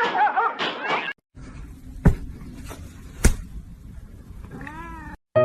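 Cat yowling with wavering, bending pitch for about a second. Then, after a short break, two loud thumps about a second apart and a brief rising-and-falling cry near the end.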